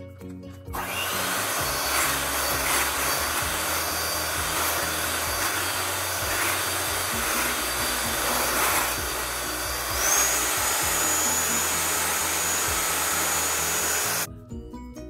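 A 3-speed electric hand mixer starts about a second in and runs, its beaters whisking cream and condensed milk in a glass bowl. Its whine steps up in pitch about two-thirds of the way through as it speeds up, and it cuts off suddenly near the end. Soft background music plays underneath.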